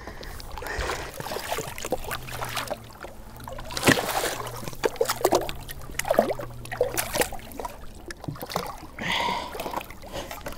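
Lake trout thrashing and splashing at the surface beside the boat as it is landed by hand, with water sloshing and irregular sharp splashes, the loudest about four seconds in. A faint steady low hum runs through the middle.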